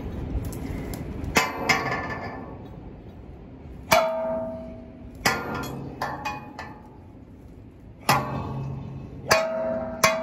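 A heavy stick swung down onto a metal stair handrail: about ten hard clangs at uneven intervals, the strongest ringing on with a clear metallic tone for a second or more.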